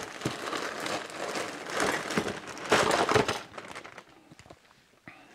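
Plastic bag crinkling and rustling in several bursts as a bag of small moped parts is emptied out, with a few small clicks. It dies down to faint clicks over the last couple of seconds.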